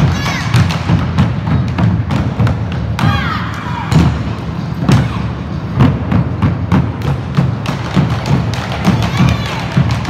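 An ensemble of large rope-tensioned wooden bass drums beaten with sticks in a fast, driving unison rhythm: deep booms from the drumheads mixed with sharp wooden clacks of sticks on the rims and shells.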